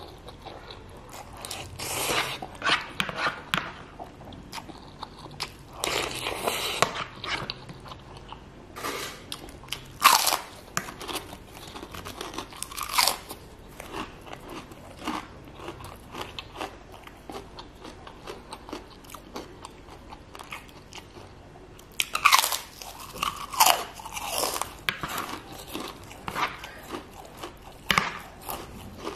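Close-miked eating of Indomie goreng noodles with tekwan fish balls: noodles slurped off a spoon and chewed, with wet mouth sounds in several separate bursts and small clicks in between.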